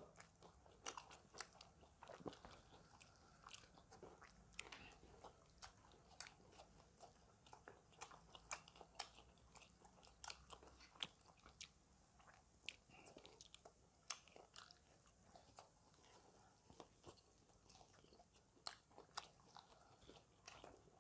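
Crispy fried chicken being bitten and chewed: faint, scattered crunches and mouth clicks, a few every second.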